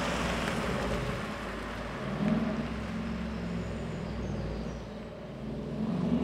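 Mercedes G-Class SUV's engine and exhaust as it drives away past the microphone, a steady low engine note that swells briefly about two seconds in and again near the end as it accelerates.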